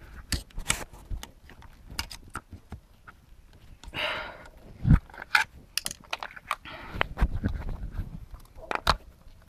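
Irregular clicks, taps and scrapes of a screwdriver and fingers working plastic fuel injector electrical connectors loose on a Mercedes M272 V6 intake, with one sharper click about five seconds in.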